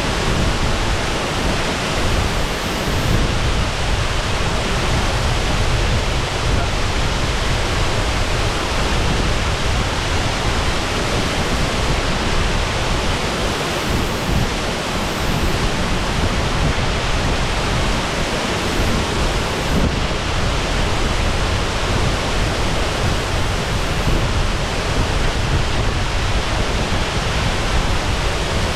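Shasui Falls pouring steadily: a loud, even rush of falling water with no breaks.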